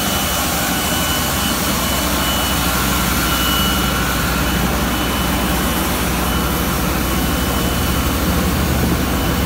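Plastic pulverizing line running: a high-speed vortex pulverizer with its round vibrating sieve, giving a steady loud machine drone with a thin high whine on top.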